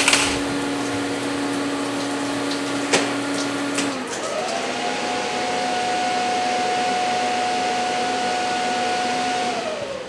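An electric motor running steadily, its hum jumping to a higher pitch with a quick rise about four seconds in, holding there, then winding down in pitch near the end. Sharp clicks at the start and about three seconds in.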